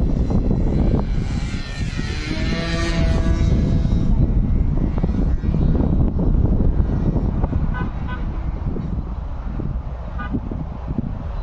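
Wind buffeting the microphone, with a radio-controlled F3A aerobatic model airplane's engine passing by from about one and a half to four seconds in, its pitch falling as it goes.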